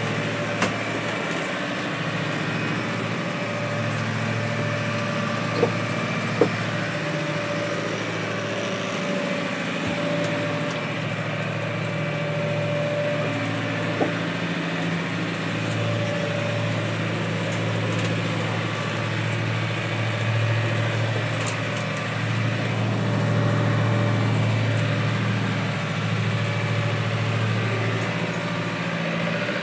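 Sailboat's inboard engine running steadily, heard from inside the cabin as a low, even hum. A few sharp knocks sound over it, two close together about six seconds in and another about halfway through.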